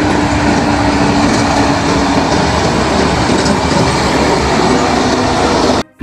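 Heavy dump trucks driving on a dirt haul road: steady engine and tyre noise that cuts off suddenly near the end.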